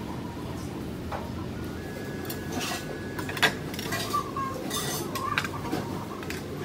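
Cutlery clinking and scraping against dishes while eating: a scattering of short clinks, the sharpest about three and a half seconds in.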